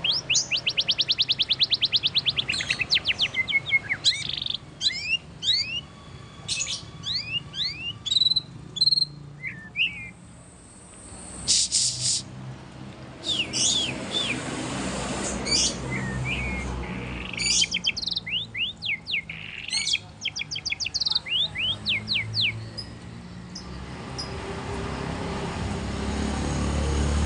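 White-rumped shama (murai batu) singing a long, varied song: a fast trill, then quick rising and falling whistles and sharp notes in phrases broken by short pauses. A low steady rumble, like a passing vehicle, builds near the end.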